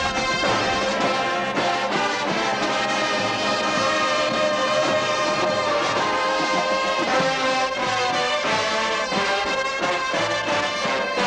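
Drum and bugle corps playing on the field: its brass line holding a loud, steady passage of full chords.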